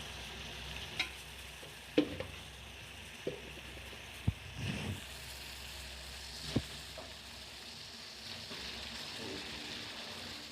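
A pot of water and spices for a herbal decoction simmering on the stove with a steady hiss. About five sharp knocks of kitchen utensils come through it, the loudest about two seconds in.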